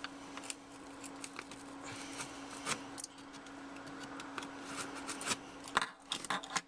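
Fingers scratching, picking and rubbing at the packing tape and flaps of a cardboard shipping box, a quick irregular run of short scrapes and ticks, trying to get it open without a knife. A faint steady hum runs underneath.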